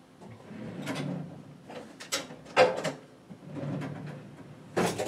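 Kitchenware being handled: a few sharp knocks and clinks with low rummaging noise between them, and a quick run of clatters near the end.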